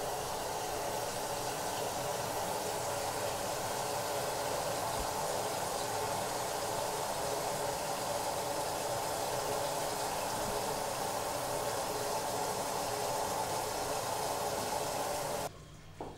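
A steady, even rushing noise that cuts off suddenly near the end.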